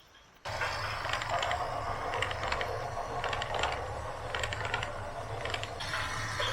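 Machinery running with a low steady hum and irregular clusters of sharp metallic clicks and rattles, starting about half a second in.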